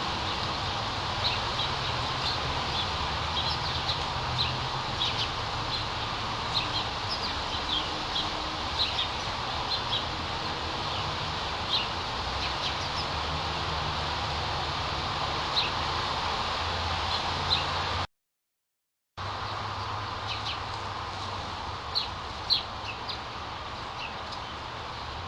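Small birds chirping, many short high chirps scattered throughout over a steady outdoor rush of background noise. The sound drops out completely for about a second roughly three-quarters of the way through, then resumes.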